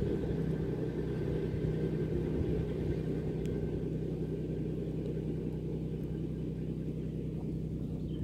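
Kubota B1161 compact tractor's engine running at a steady speed, a low, even drone that holds level throughout.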